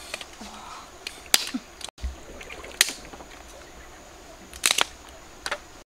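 A few sharp wooden clacks as sticks are laid and knocked together to build a fire, over the steady rush of a shallow river.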